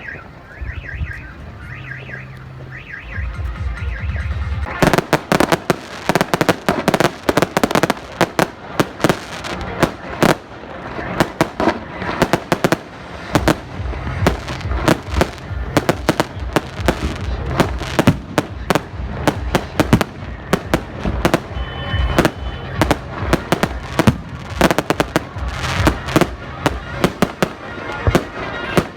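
Fireworks and firecrackers going off, a dense string of sharp crackling bangs, many a second, that starts about five seconds in and keeps up.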